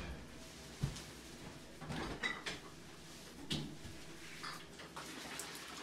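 A few faint, scattered knocks and clicks of household items being handled.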